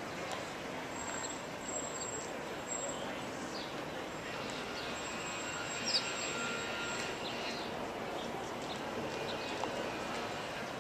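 Steady background hum of city traffic, with a few short bird chirps; the loudest chirp comes about six seconds in.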